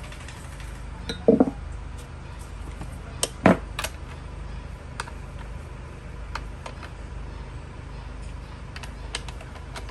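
Steel hand tools clinking and tapping against a differential's carrier and ring gear during reassembly: a few sharp metallic clinks, loudest about a second and three and a half seconds in, then lighter scattered clicks.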